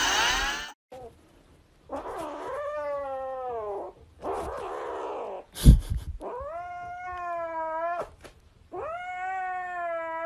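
A cat yowling: three long, drawn-out meows, the first falling in pitch. Between the calls comes a breathy hiss-like noise and a single sharp knock about halfway through.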